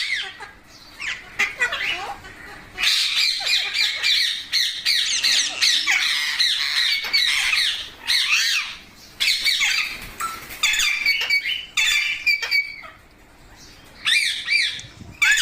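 Pet green parrot squawking and screeching. There is a long, dense run of harsh calls from about three seconds in, then shorter squawks with pauses, and another burst near the end.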